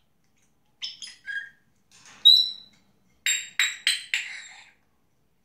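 African grey parrot whistling and calling: a few quick short notes about a second in, a clear whistle near the middle, then four loud, sharp calls in quick succession.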